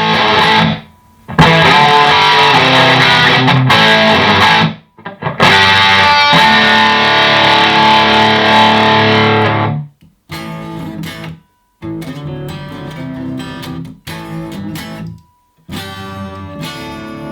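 Distorted electric guitar riffs played through an amp into a Box of Doom isolation cabinet: loud for the first ten seconds with the lid open, then much quieter once the lid is shut, showing how well the cab isolates.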